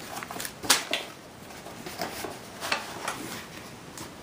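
A few sharp clicks and light knocks from a cardboard gift box and its contents being handled, the loudest about two-thirds of a second in.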